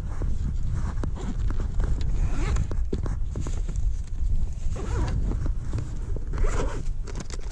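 Scratchy rustling of clothing rubbing against a chest-mounted camera, in three short bursts about two and a half, five and six and a half seconds in, over a steady low rumble.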